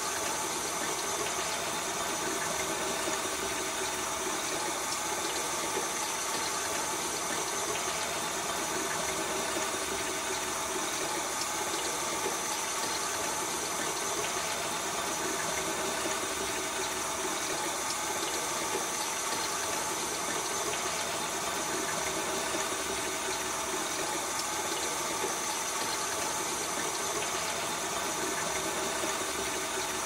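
Water flowing through a plumbing pipe: a steady, unbroken rushing hiss with a faint hum in it.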